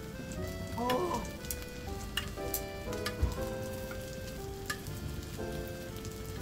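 Beef gopchang sizzling on a tabletop grill, with utensils clicking a few times, under light background music.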